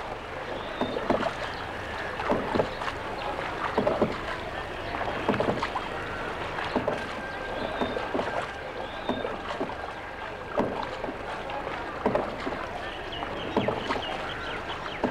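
A paddle dipping into lake water in a steady rhythm, about one stroke every second and a half, as a wooden boat is paddled along.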